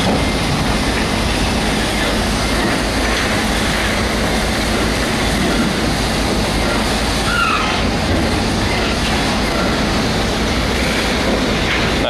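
Sawmill machinery running steadily: a dense, even mechanical rattle and clatter, with a short squeal a little past the middle.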